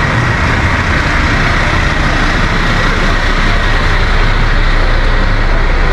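Large coach bus's diesel engine running close by, a steady loud low rumble under a broad noisy hiss.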